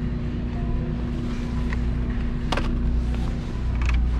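Steady low background hum with a constant droning tone, and a single sharp click about two and a half seconds in.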